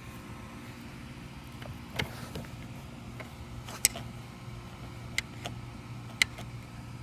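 A screwdriver tip pushing against a minivan's second-row seat latch to release it, giving a few short, sharp metallic clicks spread a second or so apart over a steady low hum.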